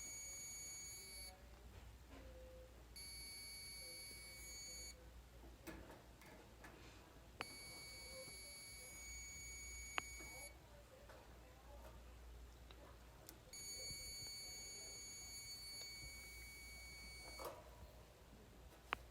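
Multimeter continuity beeper sounding four times in long, steady high-pitched tones, each held one to three seconds: a complete circuit across the test probes, here the dryer heating element's coil. A few faint ticks come between the tones.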